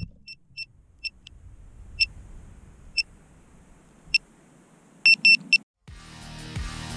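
Short high electronic beeps, most likely from a downed drone's beeper: single chirps roughly a second apart, then three longer beeps in quick succession about five seconds in. Background music with a beat comes in near the end.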